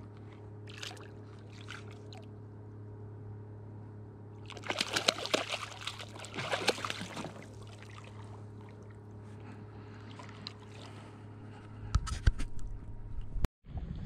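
Wooden catfish clonk striking the water beside the boat, a run of sharp splashing knocks for about three seconds near the middle, the sound used to call wels catfish. A steady low hum lies underneath, and a few heavy thumps come near the end.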